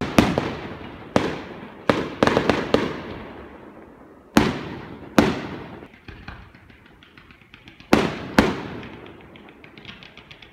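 Aerial firework shells bursting: about ten sharp booms, some in quick pairs, each echoing and dying away over a second or so. From about six seconds in, a run of small crackling pops.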